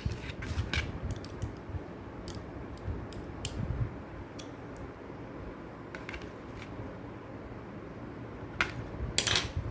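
Scattered light clicks and taps of a small nut driver and metal kit parts being handled while a nut is tightened on a toy metal construction kit, with a quicker cluster of clicks near the end.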